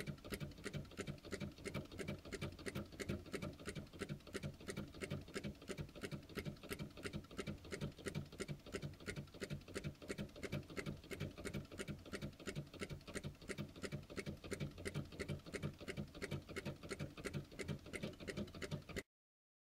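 Small Stirling hot-air engine running steadily, its mechanism clicking in an even rhythm of about four strokes a second; the sound cuts off suddenly near the end.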